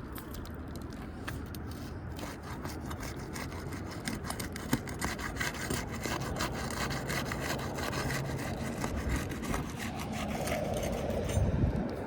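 Repeated scraping and rasping as a tool is worked under asphalt roof shingles to break the sealant strip bonding them together, with a brief low bump near the end.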